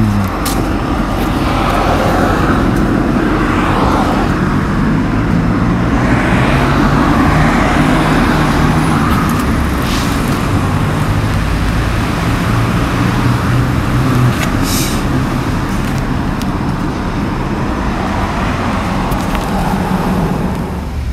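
Steady road traffic noise, with vehicles running and slow swells as they pass.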